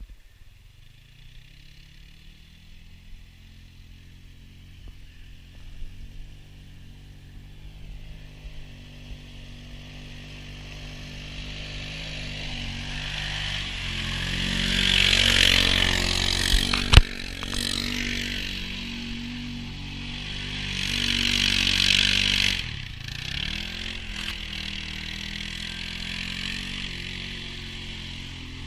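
2017 Arctic Cat Prowler HDX 700 side-by-side's single-cylinder engine coming closer and growing louder, then revving hard twice as its tyres spin and fling mud, with a loud hiss at each peak. The revs drop and pick up again between the two peaks, and a single sharp knock comes about halfway through.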